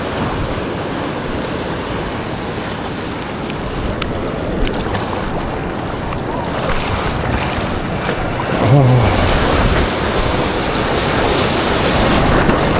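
Ocean surf and water rushing and splashing close to the microphone, with wind buffeting it. A brief low vocal sound comes a little under nine seconds in.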